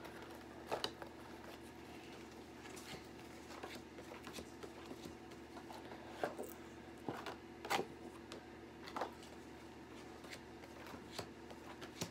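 Faint rustling and light tapping of stiff letter cards being sorted and slid into a clear plastic card stand: a handful of scattered small clicks over a steady low hum.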